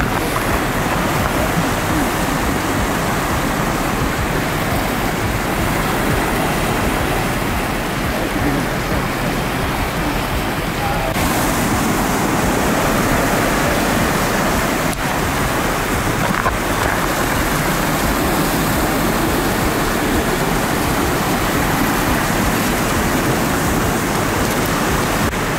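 Ocean surf breaking and washing over shoreline rocks: a steady, loud rush of white water.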